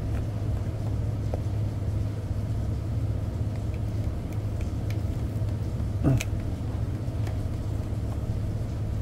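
Steady low hum of a ship's engine, with faint crackles of a dog chewing a dried lamb-ear treat and one sharp knock about six seconds in.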